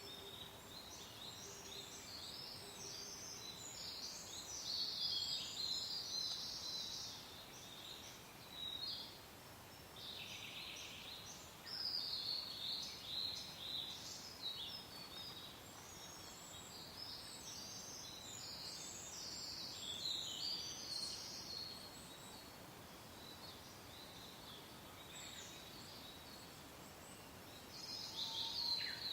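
Songbirds singing in spells of quick, high chirps and trills, with quieter gaps between, over a soft, steady hiss of wind.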